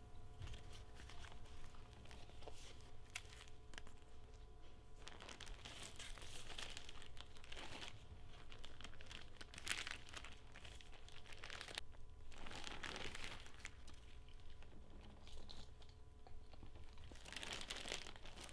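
Clear plastic zip bag crinkling in irregular bursts as it is handled, over a faint low steady hum.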